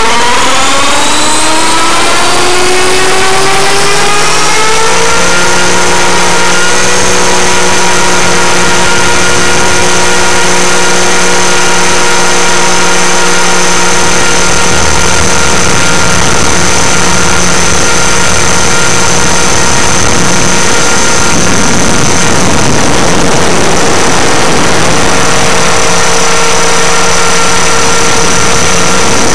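Align T-Rex 500 ESP electric RC helicopter's motor and drive gears whining loudly, heard from a camera mounted on the airframe. The whine rises in pitch for about the first six seconds as the rotor spools up to lift off, then holds a steady pitch in flight.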